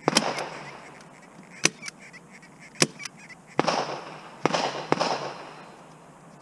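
Hand stapler snapping staples through a paper target into the wooden backer board: about six sharp snaps over some five seconds, several of them trailing off briefly.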